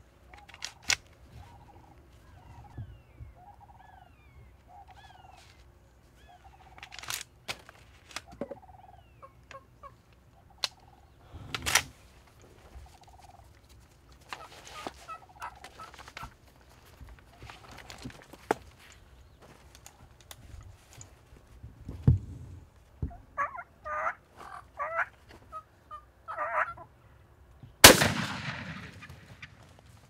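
Osceola wild turkey gobblers gobbling in a quick run about three-quarters of the way through, with a string of short soft calls and a few sharp clicks and knocks before it. Near the end a single loud shotgun blast goes off and rings out; the gun had just failed to fire with a click before it went off.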